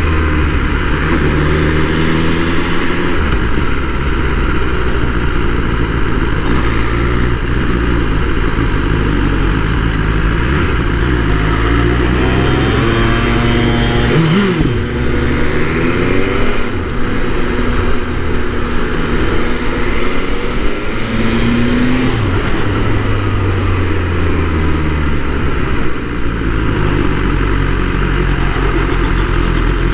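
BMW S1000R inline-four motorcycle engine running at low city speed under wind noise, its note rising and falling a few times around the middle as the throttle opens and closes.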